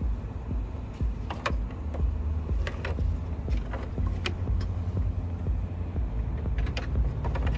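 A scatter of light clicks and taps as a rubber-and-metal coolant line and its plastic end fitting are handled against a truck's perforated metal step, over a steady low rumble.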